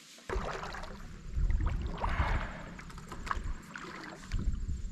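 Kayak paddle strokes in calm water as a paddleboard glides into the shallows, with water splashing and lapping at the board over a low rumble. The sound swells twice, about a second and a half in and again near the end.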